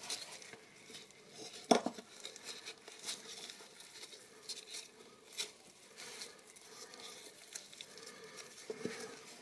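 Gloved hands handling raw bacon and a sausage on a plate: soft rustling and scattered small clicks and taps, with one sharper tap a little under two seconds in.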